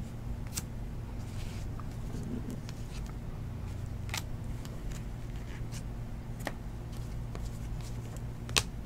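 Trading cards being flipped through by hand: scattered short clicks and snaps of card edges, the sharpest near the end, over a steady low hum.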